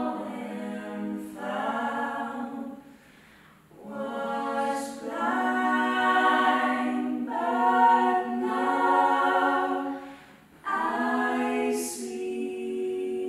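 Gospel vocal group singing long held chords, with two short breaks between phrases, about three and ten seconds in.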